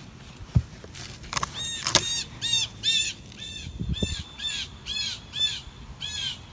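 A bird calling over and over, about two short, clear calls a second that each rise and fall in pitch. There is a sharp knock about half a second in and a couple of soft thumps near the middle.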